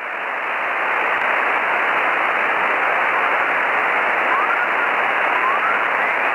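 Radio receiver static: a steady, dull hiss with no high treble that swells up over the first second. A few faint whistles slide upward in pitch about two thirds of the way through.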